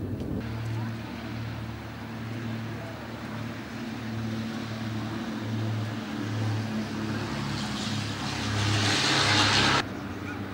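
Steady low drone of a distant engine that pulses slightly in strength. Near the end, a rushing noise swells for about two seconds and then cuts off suddenly.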